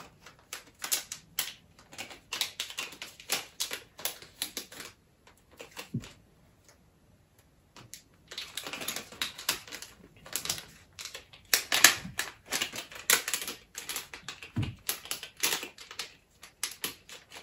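Plastic anti-static packaging being crinkled and handled, in dense runs of quick crackles with a pause of a few seconds partway through.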